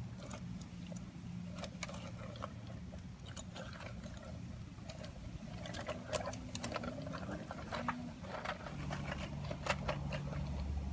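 Irregular light clicks and scrapes of a diecast front-load garbage truck model and its Curotto Can being handled and moved, with a few sharper clicks in the second half, over a low steady hum.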